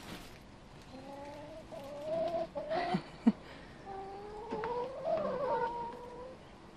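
Hens calling in long, wavering, drawn-out clucks, in two stretches of a couple of seconds each. Two sharp taps come in the short gap between them.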